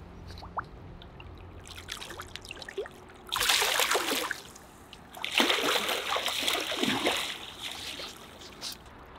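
Wels catfish thrashing at the water's surface beside the boat: a burst of splashing about three seconds in, then a longer one about five seconds in.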